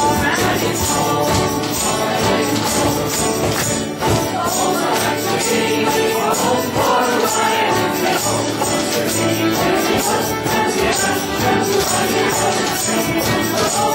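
Folk music played live, a continuous instrumental passage with a steady percussion beat.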